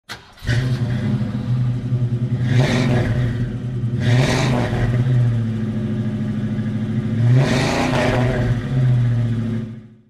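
Car engine idling, revved briefly three times, then fading out near the end.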